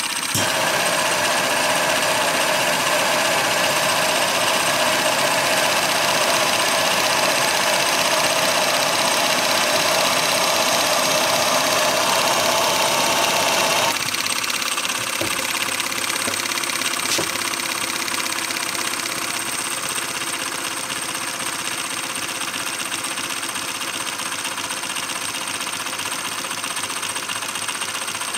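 Model rocker-beam Stirling engine running, its linkage and flywheel giving a fast, even mechanical clatter. The clatter turns quieter about halfway through and carries on steadily.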